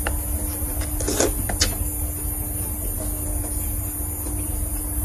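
A few light clicks and a soft knock of a metal spoon against a clear plastic sauce tub, over a steady low hum.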